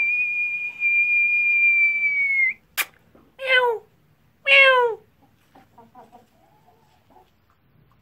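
A long, steady, high whistled note held for about two and a half seconds, then a sharp click, then two short calls about a second apart, each falling in pitch. The two calls are the loudest sounds.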